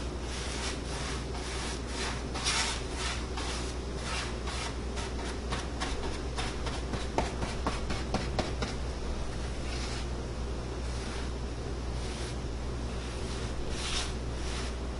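Hand sanding block rubbed back and forth over wooden window trim in quick strokes, about two or three a second, with a few light clicks partway through. The strokes stop for a few seconds and start again briefly near the end.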